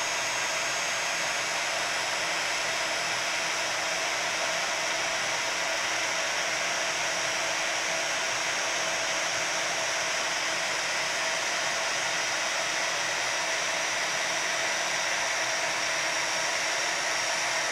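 Embossing heat tool blowing steadily, a constant whir with a faint motor hum, as it melts a thick layer of embossing powder.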